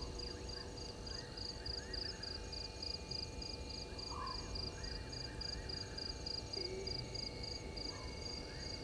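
Night chorus of crickets chirping steadily at about four chirps a second, with other short rising calls repeating every couple of seconds beneath them.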